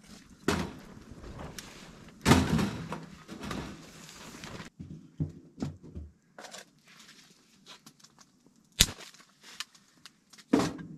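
Pine branches and wood being fed into a small sheet-metal tent wood stove: a few knocks, a longer rustling, crackling burst about two seconds in, more knocks, and a sharp metallic click of the stove's fittings near the end.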